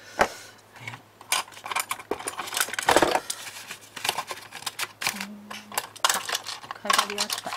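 Light metallic clicks and taps, irregular, as knitting machine latch needles and small metal parts of a Brother machine are handled and set down, with one louder knock about three seconds in.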